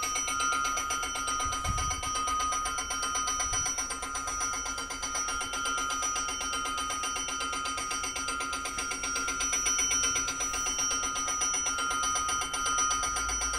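Railway station's electric warning bell ringing steadily in rapid, even strokes, announcing a train approaching from the Mendrisio direction.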